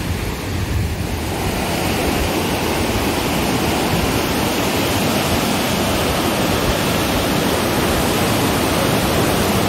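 Fast mountain creek rushing over rocks in a steady whitewater din, growing louder over the first two seconds as the water is neared, then holding steady. The creek is running high with spring snowmelt.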